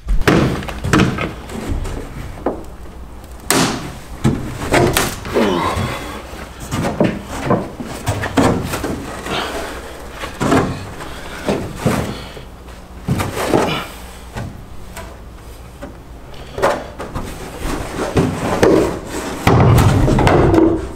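A one-piece fiberglass truck front clip being lifted, shifted and set down on a wooden trailer deck: a string of irregular hollow thumps, knocks and scrapes.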